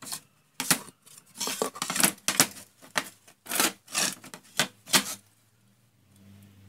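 Wooden boards being handled and slid over a work table: a string of about ten short scrapes and knocks, then quieter near the end with a faint low hum.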